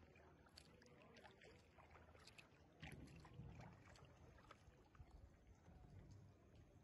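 Faint water lapping and splashing around a small boat under way, with scattered light ticks and a low rumble that swells briefly about three seconds in.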